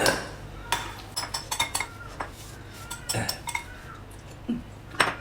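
Cutlery clinking against plates and bowls during a meal: a quick run of short clinks about a second in, a few more around the middle, and one louder clink near the end.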